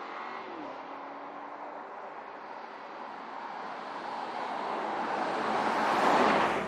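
2019 Porsche Cayenne Turbo's twin-turbo V8 and tyres on the road as the SUV drives past, growing steadily louder to a peak about six seconds in. Its engine pitch drops briefly in the first second.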